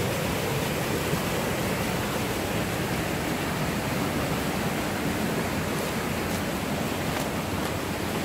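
Steady rush of a mountain stream's flowing water, even and unbroken.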